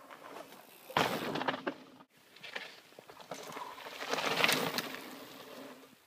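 A mountain bike riding past on a dirt forest trail, its tyres crunching over dirt and loose stones. One loud pass starts suddenly about a second in and cuts off shortly after; a second pass swells to its loudest past four seconds in, then fades away.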